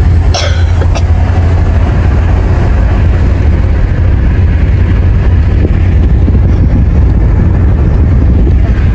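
Steady road and engine rumble heard from inside a taxi's cabin as it drives along a highway.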